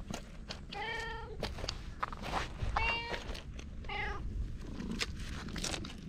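A cat meowing three times in short calls, the second one higher-pitched.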